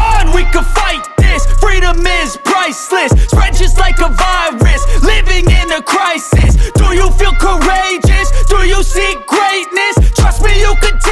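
Hip hop music with a deep, pulsing bass.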